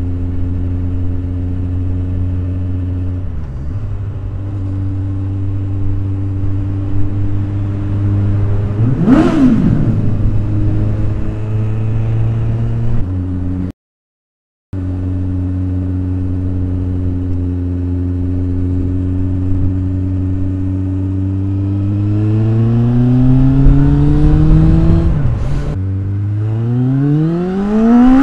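Motorcycle engine running through a newly fitted Beowulf aftermarket exhaust can. It holds a steady pitch while cruising, then revs up through the gears near the end, with the pitch dropping back at a gear change. There is a short rise and fall in pitch about nine seconds in, and the sound cuts out for about a second midway.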